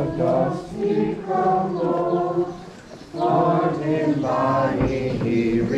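A group of voices singing or chanting together in phrases, with a short break about two and a half seconds in.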